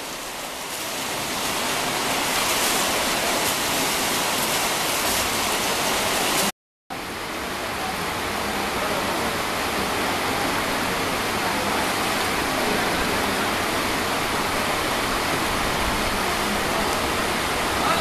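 Steady rush of river water flowing over rocks, cut by a brief gap of silence about six and a half seconds in.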